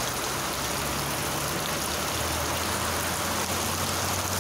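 Steady rain falling, an even hiss, with a low steady hum underneath.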